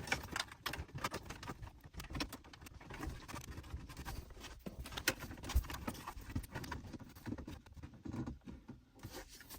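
Hand-handling noise of a dashboard install: irregular small clicks, taps and rustles of plastic and cables as the 4G SIM antennas are set in place inside the dash opening.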